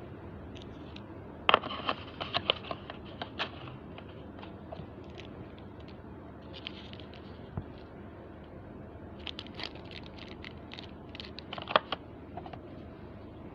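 Hands handling a plastic packaging tray and a carry case: two clusters of sharp clicks, taps and rustles, one about a second and a half in and another from about nine seconds to near the end.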